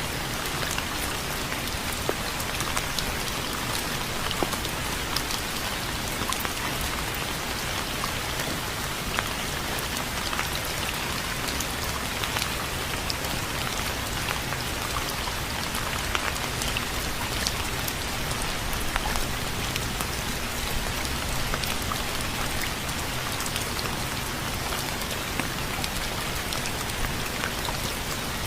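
Steady rain falling: a continuous hiss of rainfall with many small, scattered drop ticks.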